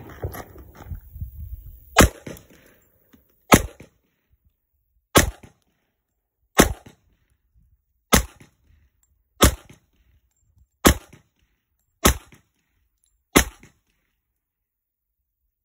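Taurus Millennium PT140 Pro .40 S&W pistol fired nine times in slow, even succession, about one sharp shot every second and a half.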